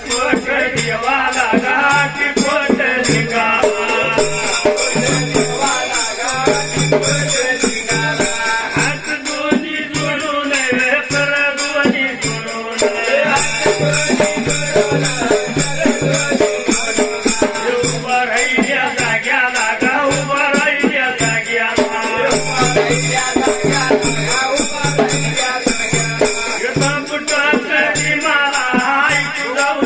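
Dhangari ovi folk music: regular drum beats under a rattling, jingling percussion and a wavering melodic line, playing continuously.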